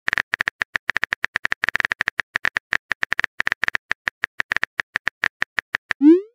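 Simulated keyboard typing clicks from a chat-story animation's sound effects, about eight a second. Near the end comes a short rising swoosh, the sound of a text message being sent.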